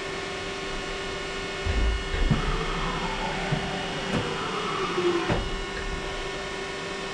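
Haas VF1 CNC vertical machining centre running: a steady hum, with a whine that falls in pitch over about three seconds and a few low thumps in the middle.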